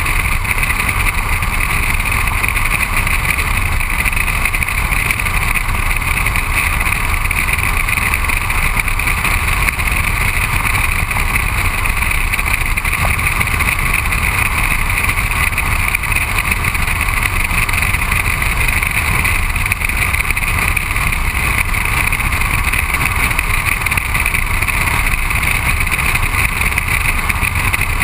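Steady rush of wind and tyre-on-road noise picked up by a camera mounted low beside a moving car's front wheel, unbroken and without change in pitch.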